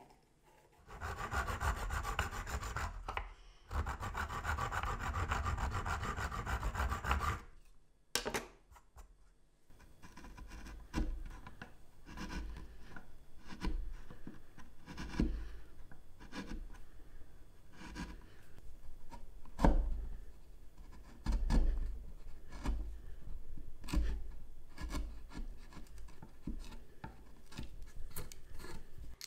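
Hand-fitting a brass ferrule ring onto a wooden chisel handle. First comes a steady rasping of an abrasive point worked against the brass ring for about six seconds. Then a carving tool pares the wooden handle end in short, irregular scraping cuts, with a few louder knocks.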